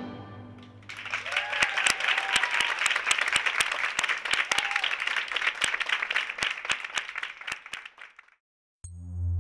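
Theatre audience applauding, with a couple of voices cheering, as the recorded orchestral music dies away. The applause stops shortly before the end and a synthesizer tune begins.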